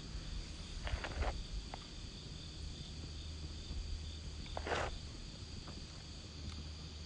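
Wood campfire burning, with a couple of short crackles about a second in and just before five seconds and a few faint snaps, over steady high-pitched insect chirring and a low rumble.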